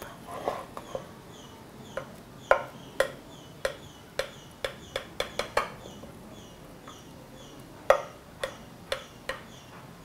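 A kitchen knife cutting through soft dhokla in a glass baking dish, the blade tapping and clicking against the glass with each cut, in about fifteen sharp, irregular taps.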